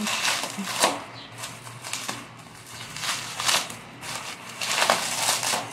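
Plastic bubble wrap rustling and crinkling in the hands as it is pulled out and unwrapped, in irregular bursts.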